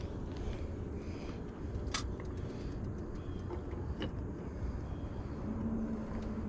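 A hooked catfish being handled and unhooked by hand: a few small clicks and one sharp click about two seconds in, over a steady low rumble.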